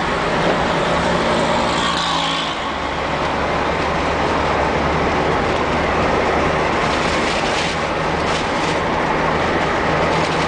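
Car driving along a road, heard from inside the cabin: a steady low engine hum under tyre and wind noise.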